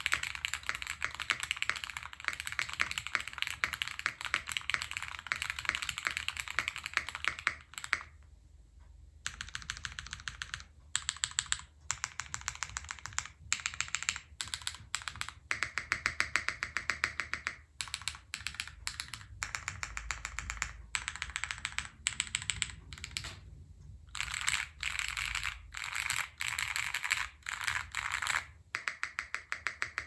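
Custom Gas67 mechanical keyboard with lubed Cherry MX Black linear switches on a polycarbonate plate: fast steady typing for about eight seconds, then a short pause and bursts of repeated key presses with short gaps between them, the spacebar among them.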